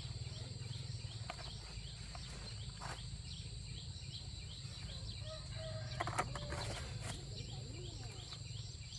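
Countryside ambience: a steady high-pitched insect drone under small chirps repeating about three times a second, with a low rumble and a few knocks and a short call around six seconds in.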